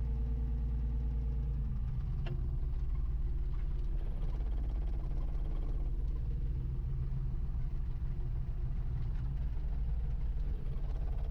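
Wheel loader's diesel engine running steadily, heard from inside its cab; the engine note shifts lower about two seconds in.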